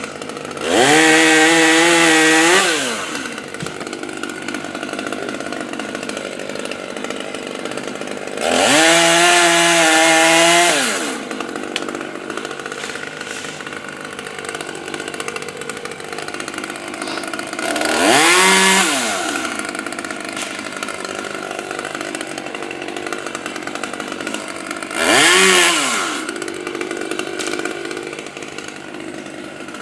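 Chainsaw idling steadily, revved up to high throttle four times, each burst lasting one to two seconds before the pitch drops back to idle.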